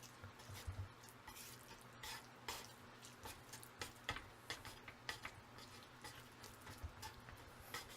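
Faint wet squelches and scattered light clicks of saucy instant jjajang noodles being tossed and mixed with a utensil, over a low steady hum.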